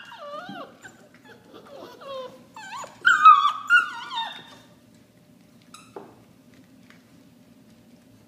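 Seven-week-old chocolate Labrador puppies whining and yelping in high, downward-sliding cries during rough play, the loudest run about three to four seconds in. The cries then stop, leaving faint scuffling and a single knock about six seconds in.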